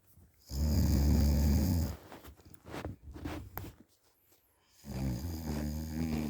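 A person snoring in deep sleep: two long, loud snores with a low rattling pitch, the second starting near the end, and quieter breaths between them.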